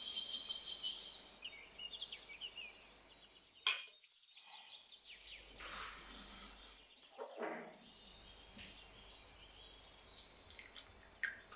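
Faint kitchen handling sounds: a sharp clink of dishware about four seconds in, then light scraping and small clinks of utensils and dishes, as background music fades out at the start.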